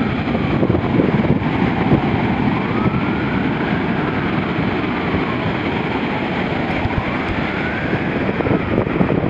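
A siren wailing, slowly rising and falling about every four seconds, over the steady rush of breaking surf and wind on the microphone.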